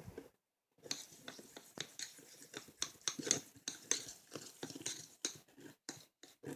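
A thick, clumping slime mixture of foaming cleanser, salt and baking soda being stirred in a bowl: an irregular run of sticky scraping and clicking.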